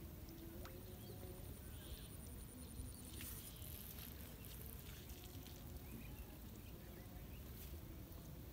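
Faint outdoor ambience: a steady low rumble with a few soft, scattered bird chirps.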